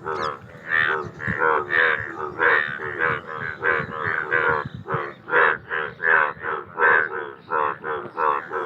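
Indian bullfrogs croaking in a breeding chorus: short, rough, pitched croaks come in quick, overlapping succession, about three a second, without a break.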